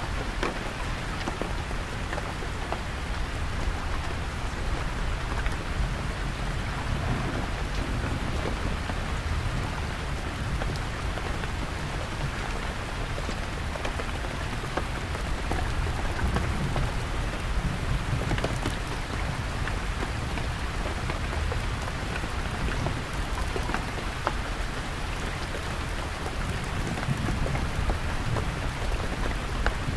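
Heavy rain falling steadily on a canvas tent, with deep distant thunder low underneath.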